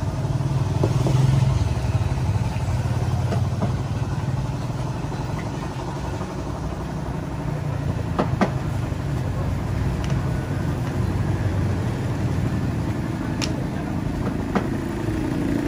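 Steady low engine rumble of road traffic, with a few light clicks.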